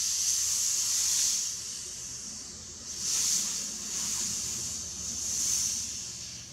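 Compressed air hissing out of a Huben K1 PCP air rifle's regulator chamber as the regulator is slowly loosened to vent it before disassembly. The hiss is high-pitched and swells and fades several times as the remaining pressure bleeds off.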